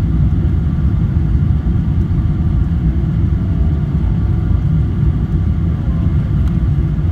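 Steady low rumble inside the cabin of a Boeing 777-300 rolling on the ground after landing: wheel and airframe rumble mixed with engine noise.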